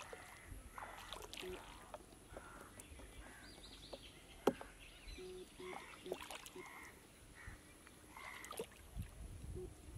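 Quiet sounds of small fish being picked out of a nylon gill net over a plastic bucket of water: light splashes and drips with scattered clicks, and one sharp click about four and a half seconds in.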